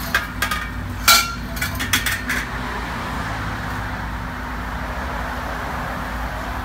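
Metal clinks and knocks from an aftermarket stainless muffler, the Blitz Nur-Spec, being fitted to the exhaust pipe joint under the car. A quick run of sharp clicks comes in the first two and a half seconds, the loudest about a second in, over a steady low hum.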